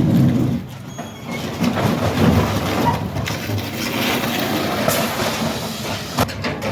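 Metal screeching and grinding as heavy machinery tears a Dodge Dakota pickup's body off its frame, with a sharp clank about six seconds in.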